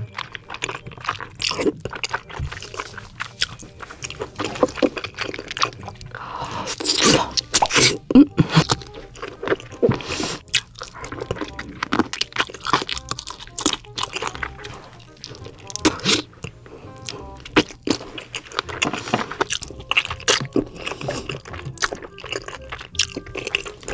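Close-miked eating of creamy rose tteokbokki and glass noodles: wet chewing, smacking and slurping of noodles and chewy rice cakes in irregular bites. Background music plays underneath.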